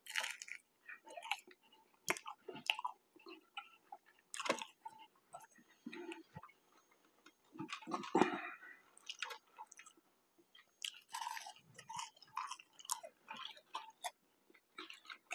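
Close-up chewing and mouth sounds of a person eating McDonald's chicken nuggets and fries, with irregular small crunches and wet clicks.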